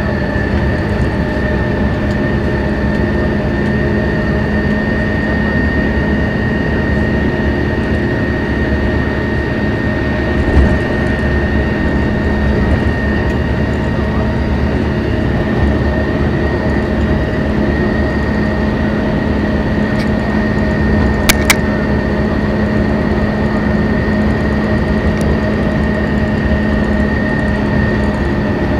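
Interior of a 1992 Neoplan AN340/3 coach cruising at steady freeway speed, its Detroit Diesel Series 60 engine running evenly under road and tyre noise, with a steady high whine. Two sharp clicks come a little past two-thirds of the way through.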